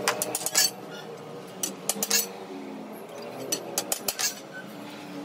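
Light metallic clinks and taps of stainless steel square tubes being handled and knocked against each other and the floor, coming in small scattered clusters.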